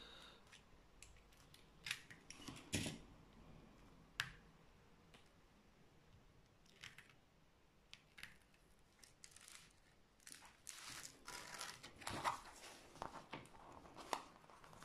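A few faint, sharp clicks from small scissors worked against a diamond painting canvas. From about ten seconds in comes denser crinkling as the canvas's paper and plastic protective sheets are handled.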